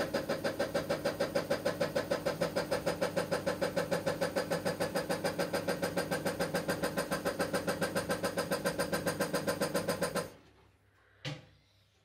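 Gorenje washing machine with a failed inverter motor giving a rapid, even pulsing buzz, about five or six pulses a second, while the drum stays still; the fault behind it is a blown motor. The buzz cuts off about ten seconds in, followed by one sharp click.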